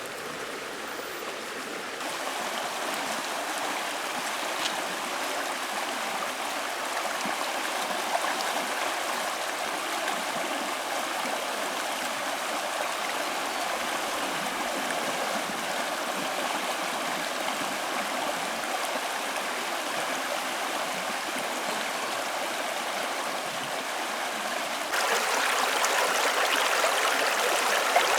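Stream water flowing steadily, a continuous rushing babble that steps louder suddenly near the end.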